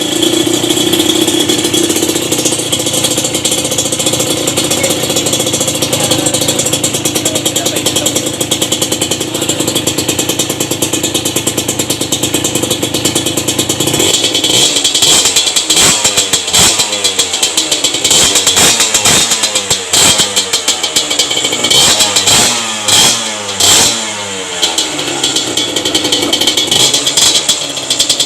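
Kawasaki KMX125 two-stroke single-cylinder engine breathing through an aftermarket exhaust pipe. It runs steadily for about fourteen seconds, then is revved again and again, the pitch climbing and falling with each blip.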